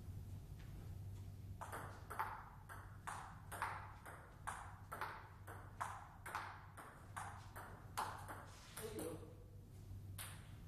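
Table tennis rally: the celluloid ball clicking off the bats and the table in a steady run of about sixteen sharp knocks, roughly two a second, one bat fitted with Meteor 8512 long-pimple rubber without sponge. A single knock follows near the end, over a steady low hum.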